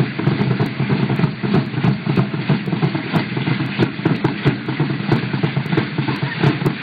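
Drumming for a dance, with dense rattling over a fast, busy beat.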